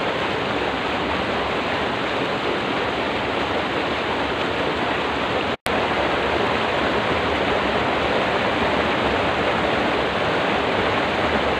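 Water in a small ditch rushing steadily, churning past a concrete edge. The sound cuts out for an instant just past halfway.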